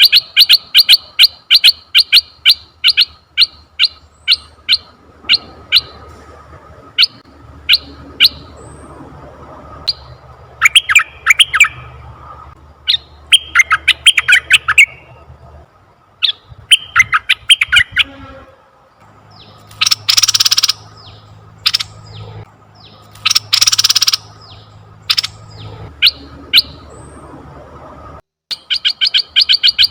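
Asian red-eyed bulbul calls. A rapid run of short, sharp chirps, about five a second, gives way to scattered notes and quick bubbling phrases, with two harsh, rasping bursts about three seconds apart near the middle. The sound cuts out briefly near the end before the rapid chirping starts again, over a faint low hum.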